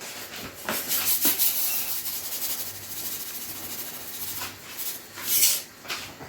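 Rubbing and scraping in a mixing bowl while basbousa batter is being made, with a louder hiss about five and a half seconds in.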